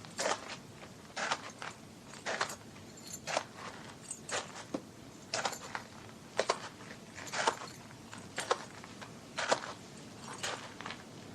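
Slow, evenly paced footsteps from a sound-effects recording: about one step a second, each a short sharp knock, some coming as two quick hits close together.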